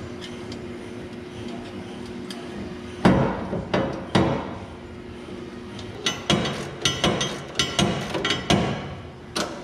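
Metallic knocks and clanks from hand work on steel: a few separate blows, then a quick run of ringing knocks over a steady low hum.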